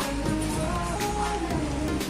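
Music playing: a melody of held notes over a steady low bed.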